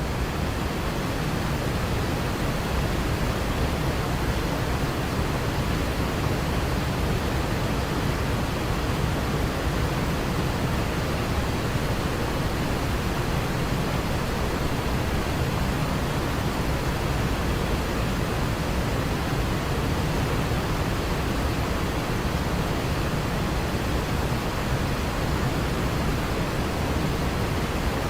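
Waterfall: falling water rushing steadily and evenly, heaviest in the low end, with no change in level.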